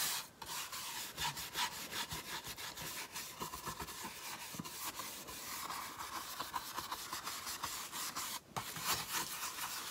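Quick, irregular scratchy rubbing strokes on a rough wooden shingle, as brown wax is worked into the board's edges.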